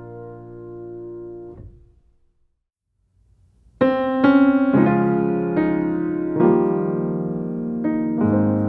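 Background piano music: a held chord fades away, a short gap of near silence follows, then a new piano passage starts just under four seconds in.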